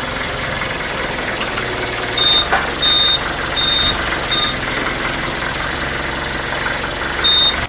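Heavy machinery running steadily, with a high-pitched warning beeper sounding four short beeps in a row about two seconds in and once more near the end.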